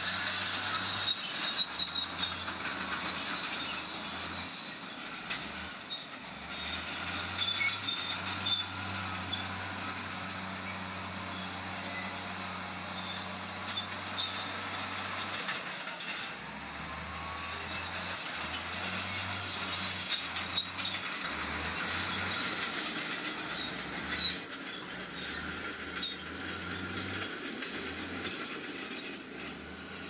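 Crawler bulldozer working: the engine running under a steady din of steel tracks squealing and grinding.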